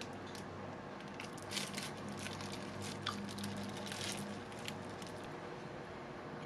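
Soft squishing and crackling food sounds, with short crisp noises every half second to a second over a faint steady hum.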